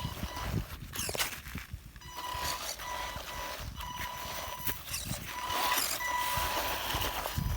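Feiyue FY03 RC off-road truck's electric motor whining in short spurts, with clicks and scrapes from its drivetrain and tyres as it crawls up a dirt slope on swapped-on wheels that make the climb hard.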